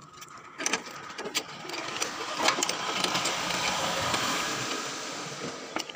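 Key being turned and jiggled in a round shutter padlock on a steel rolling shutter: a few sharp metallic clicks, then a steady rattling and scraping of the key in the lock that dies away near the end, as the lock comes open.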